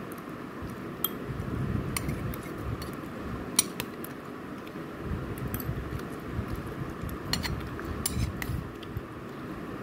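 Light metallic clinks of a stainless steel plate and bowl being handled during a meal: a dozen or so scattered sharp ticks, the loudest about three and a half seconds in.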